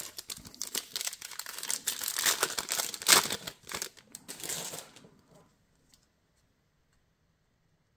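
A trading card pack's wrapper being torn open and crinkled in the hands, a dense crackle that peaks about three seconds in and stops after about five seconds.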